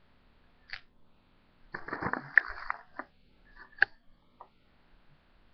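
A hand rummaging in a clear plastic bag of small plastic Crazy Bones figurines: a burst of bag rustling about two seconds in, then a few sharp clicks of the figures knocking together.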